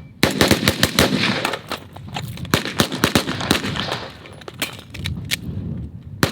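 Rapid, overlapping gunfire from two shooters firing at once in a timed head-to-head drill, starting just after a shot-timer start signal: a dense string of shots for about four seconds, then slower, spaced-out shots.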